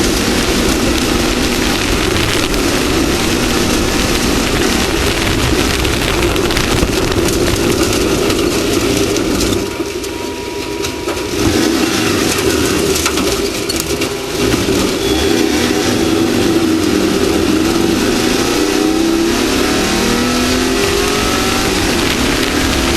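Off-road race vehicle's engine running hard at high revs over a constant rush of noise. The engine drops off briefly about ten seconds in, then climbs in pitch several times near the end as it accelerates.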